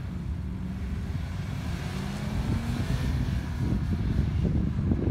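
Engine of a stock 2019 Subaru Crosstrek, a 2.0-litre flat-four, revving up as the car accelerates away from a standing start, its pitch rising steadily for about three seconds. From about halfway through, wind gusts on the microphone.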